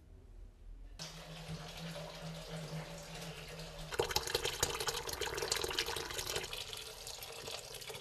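Water running from a tap into a basin, starting about a second in and splashing harder from about four seconds in, with a low steady hum during the first few seconds of flow.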